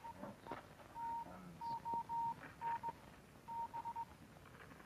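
Morse code coming in over a radio set: a single steady beep keyed on and off in short dots and longer dashes, with a few faint clicks and rustles.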